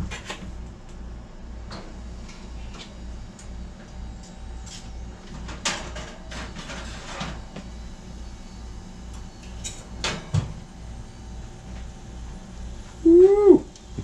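Off-screen clatter of a toaster oven being opened and a foil-lined metal baking tray pulled out: scattered clicks and knocks, a scraping rustle around six to seven seconds and a sharper knock near ten seconds, over a low steady hum. Near the end comes a short pitched sound that rises and then falls.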